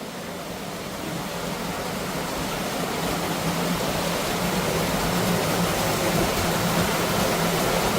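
Rushing water of a river, a steady even noise that grows gradually louder.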